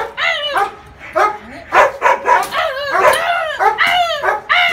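Large shepherd-type dog barking over and over, several sharp, high barks a second.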